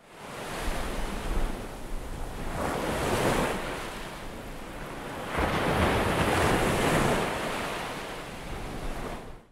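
Ocean surf: waves breaking and washing up a sandy beach, swelling louder twice, with wind rumbling on the microphone. It fades in at the start and fades out at the end.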